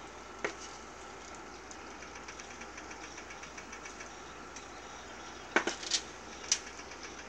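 Breaded chicken pieces deep-frying in a pan of hot oil: steady sizzling with rapid small crackles, and a few sharp louder clicks, one about half a second in and three near the end.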